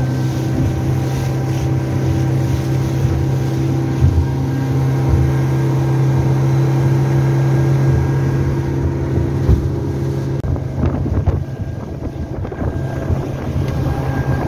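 Mercury outboard motor running steadily at speed, pushing the boat through the water, with wind buffeting the microphone. After about ten seconds the steady engine tone gives way to a rougher, more broken mix of engine, water and wind.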